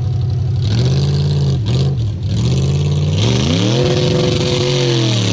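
A 6.0 LS V8 with headers, swapped into a Jeep Wrangler YJ, revving hard in deep water. The revs rise, dip twice, then climb and hold high about three and a half seconds in. A heavy splashing of thrown water joins in over the engine for the second half.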